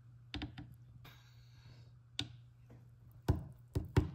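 Light clicks and taps of hard plastic as a doll and a toy play-dough mould press are handled. There are a few near the start, one past the middle and a quicker run near the end, with a brief soft rustle in between.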